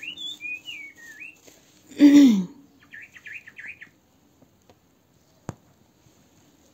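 A small bird chirping and warbling in wavering high notes, then a quick run of twittering about three seconds in. About two seconds in, a short, loud sound with a falling, voice-like pitch cuts across it, and a single sharp click comes later.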